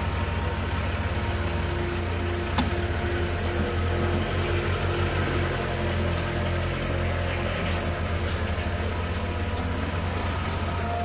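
Vehicle engine idling with a steady low hum, with a sharp click about two and a half seconds in and a couple more near the end.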